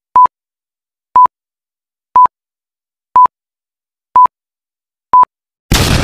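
Six short electronic beeps at one steady pitch, evenly spaced one a second. Near the end a sudden loud burst of noise cuts in as an intro sound effect.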